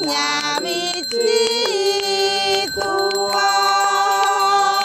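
A Javanese-language song sung with music, its voice holding long steady notes, with a steady high ringing from a priest's hand bell underneath.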